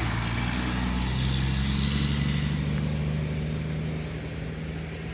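A heavy truck's engine running as it passes, its pitch rising a little early on and then holding steady, getting fainter near the end.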